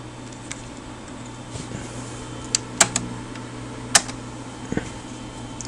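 Four sharp clicks, the first three about two and a half to four seconds in and a fainter one near five seconds, from test gear being handled on a repair bench, over a steady low hum.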